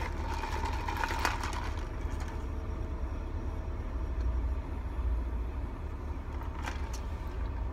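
Car interior with the engine idling and the air conditioning blowing: a steady low hum, with a couple of short clicks about a second in and near the end.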